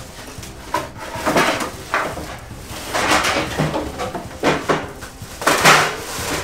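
Plastic wrap crinkling and cardboard packaging rustling as an electric grill is pulled out of its box and handled, in several separate bursts.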